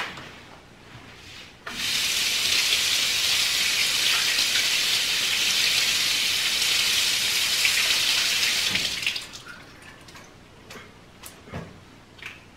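Kitchen tap running, with water falling onto hands being rinsed in the sink. It is turned on about two seconds in and shut off about nine seconds in, followed by a few light knocks.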